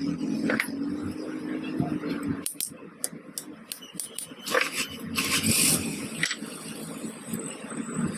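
Hand work on a clutch plate: a series of sharp taps and clicks, and a scraping noise about halfway through, over a steady low hum that stops after about two and a half seconds.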